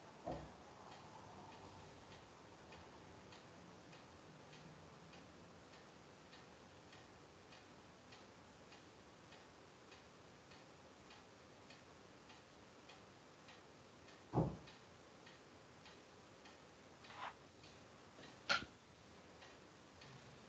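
Faint, regular ticking, about two ticks a second, with a few louder knocks and clicks in the second half.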